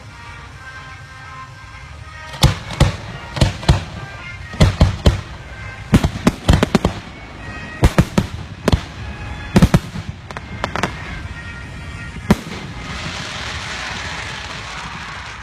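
Aerial fireworks shells bursting: a rapid string of about twenty sharp bangs, some in quick clusters, over about ten seconds. A hiss follows the last bang.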